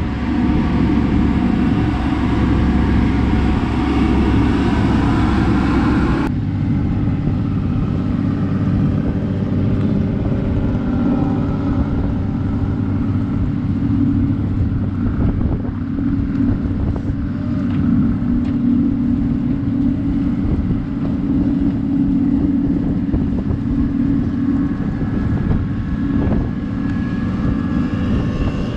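A boat's engine running steadily while the boat moves on the river, a continuous low drone. The sound changes abruptly about six seconds in, at a cut, then carries on steady.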